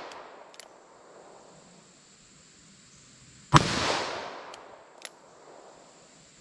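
A single gunshot from a .44 Special revolver firing 255-grain hard cast ammunition, about three and a half seconds in, followed by a rolling echo that dies away over about a second. The echo of the previous shot is fading at the start, and a faint click follows each shot about a second and a half later.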